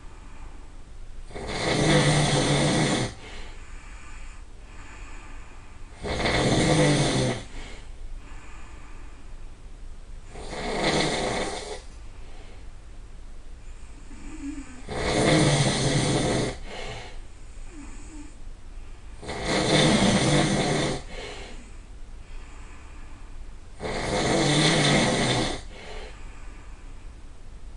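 A person snoring loudly: six long, rasping snores, one about every four and a half seconds, with quieter breaths between them.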